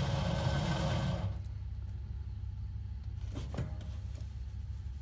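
Starter cranking a cold-soaked 1966 Plymouth Valiant slant-six at 15 below, pulsing, then cutting out about a second in. After that only a low rumble remains, with a single click about halfway through.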